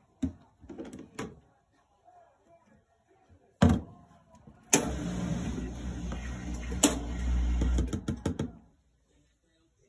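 Plastic clicks and knocks from a laundry detergent cap being handled at a washing machine's detergent dispenser, then about four seconds of steady, low rumbling noise with a click partway through.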